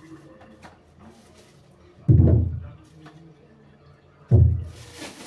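Two dull thumps about two seconds apart, each dying away quickly: tomatoes set down in a stainless steel kitchen sink.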